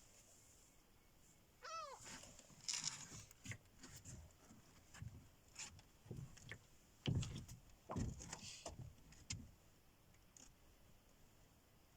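A gull gives one short arched call about two seconds in, amid scattered light knocks and rustles.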